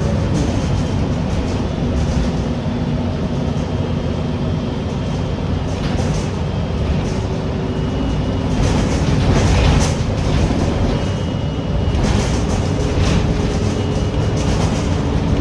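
City transit bus running, heard from on board: steady engine and road rumble with faint whining tones that change pitch now and then, and intermittent rattles, busiest in the second half.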